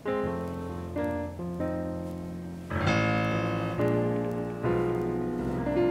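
Piano music: a chord struck and left to ring, then further notes and chords about every second, each fading out.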